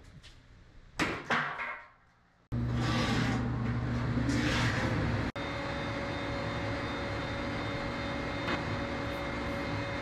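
A few knocks about a second in, then a machine running with a steady hum and a few steady tones.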